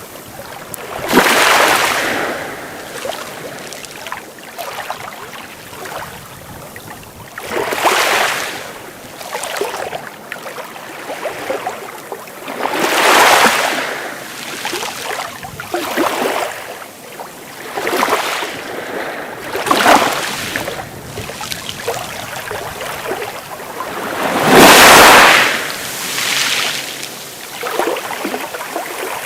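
Sea waves breaking in a surge of surf every few seconds, about six in all, with a steady wash between them; the biggest wave breaks near the end.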